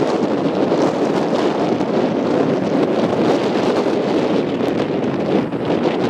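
Steady rushing wind noise on the microphone.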